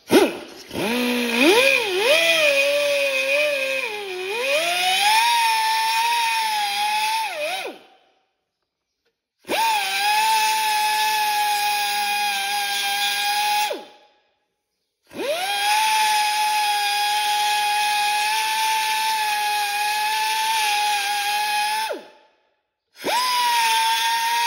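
Pneumatic die grinder with a carbide burr grinding out a crack in a cast-iron 14-bolt axle housing, a high steady whine. It comes in four runs with short silent gaps, spinning up at the start of each, and the pitch wavers and sags in the first few seconds as the burr bites into the iron.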